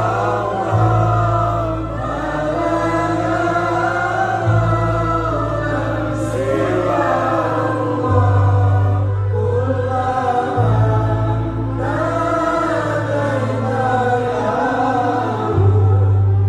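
Islamic devotional song sung by a group of voices over amplified instrumental accompaniment, with long held bass notes that change every few seconds, heard through the PA system from the audience seating.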